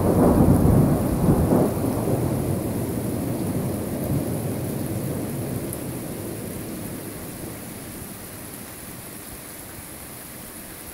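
Thunder rumbling, loudest at the start and dying away slowly over about ten seconds, with steady rain falling throughout.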